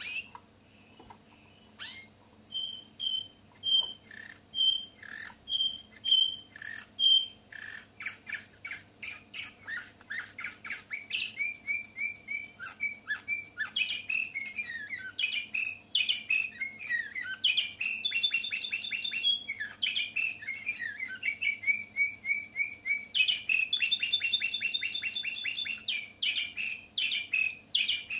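A caged finch singing: first a string of single, evenly spaced notes, roughly two a second, then from about eight seconds in a long, varied song of fast trills, rolls and falling whistles.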